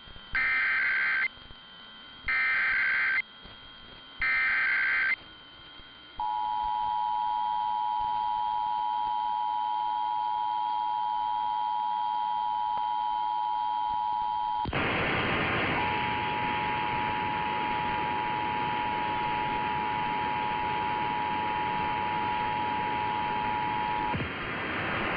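Emergency Alert System broadcast signal: three short bursts of the screeching digital SAME header, then the steady two-tone attention signal (853 and 960 Hz). About 15 s in, a loud hiss breaks in and the two-tone attention signal resumes over it until near the end.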